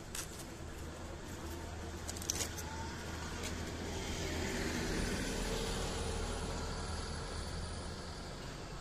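Road traffic: a motor vehicle passes, swelling to its loudest about five seconds in and then fading, over a steady low engine hum, with a few faint clicks in the first few seconds.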